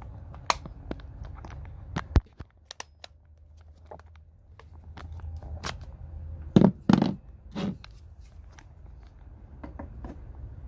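Clicks and knocks of a cordless electric ratchet being handled: its battery pack unlatched and pulled off and the bare tool set down on a scale. A few heavier knocks come about seven seconds in.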